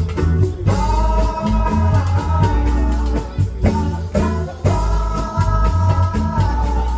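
Background music: a band track with a heavy bass line, guitar, a steady drum beat and a sung melody.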